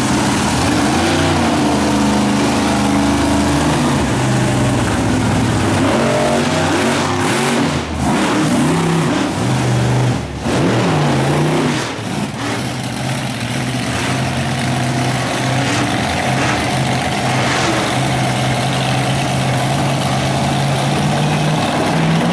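Monster truck engines running and revving, the pitch rising and falling. From about halfway, one truck's engine holds a steady drone as it drives down the track, climbing slightly near the end.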